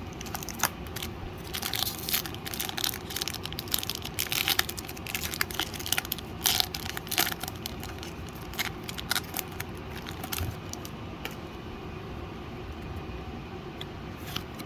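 Foil wrapper of a Pokémon booster pack crinkling and tearing as the pack is opened, a dense run of crackles over the first seven seconds or so that thins out after.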